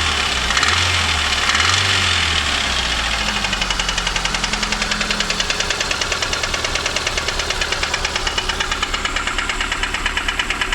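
VAZ-2115 Samara's 1.5-litre 8-valve four-cylinder engine, revved briefly a few times and then settling to idle, with a strong, ringing knock repeating rapidly and evenly. The owner suspects the fourth piston is knocking (piston slap), since the valves are adjusted and the camshaft seems fine.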